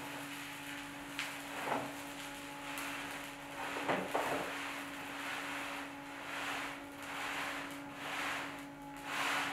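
Furbulous Box automatic litter box running its Smart Clean cycle: the motor hums steadily as it turns the drum. Litter shifts and slides inside, with louder scraping shuffles about 1.5 and 4 seconds in, then soft swishes about once a second.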